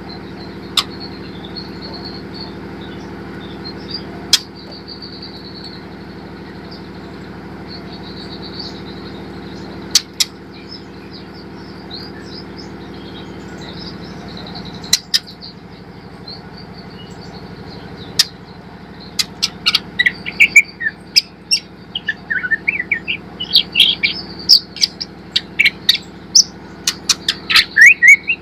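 Juvenile white-rumped shama twittering softly with a few sharp clicks, then, about two-thirds of the way in, breaking into a rapid run of loud sharp clicks and chirps. A steady low hum runs underneath.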